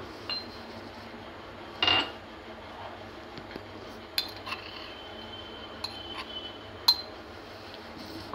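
Kitchen utensils clinking now and then, a spoon and small metal or glass containers knocking with short ringing tones. The loudest clink comes about two seconds in, and a few lighter ones follow, over a steady low hiss.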